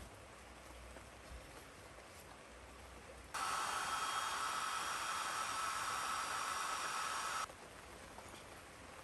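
Steady hiss of rain. About three seconds in, a much louder steady hiss cuts in abruptly and stops just as abruptly about four seconds later.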